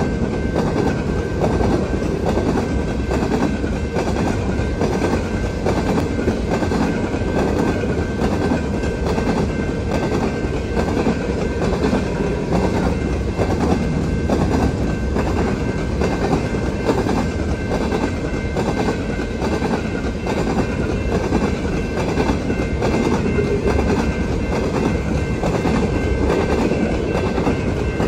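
Covered grain hopper cars of a freight train rolling past close by: a steady rumble of steel wheels on the rails, with repeated clacks as the wheels cross rail joints and a faint, steady high-pitched ringing above it.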